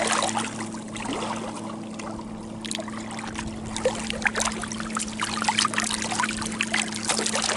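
Shallow water lapping and trickling among rocks at the lake's edge, with many small splashes and drips, over a steady low hum.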